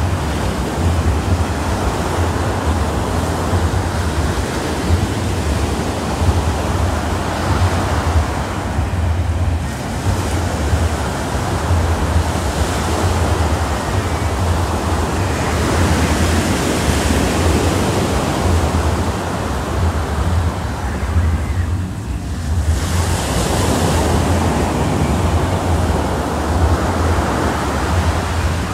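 Ocean surf breaking and washing up a sandy beach, the noise swelling and easing as each wave comes in, with a steady low rumble of wind on the microphone.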